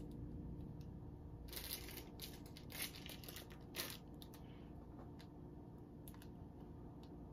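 Faint crinkling of a plastic candy wrapper handled in the fingers, in a few short rustles: a longer one about one and a half seconds in, then brief ones near three and four seconds.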